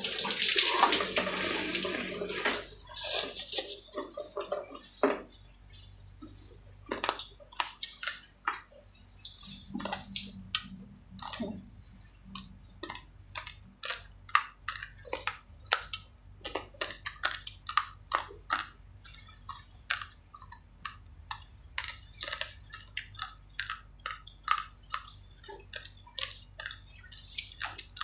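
Water poured from a plastic dipper splashing over a person's head for about three seconds, then a long run of sharp, crisp crunches as raw uncooked rice grains are chewed.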